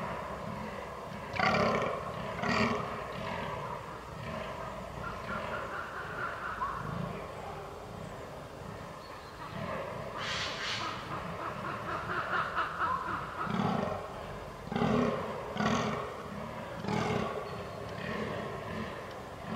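Fallow buck groaning in the rut: repeated deep grunting calls in irregular runs, some much louder than the rest.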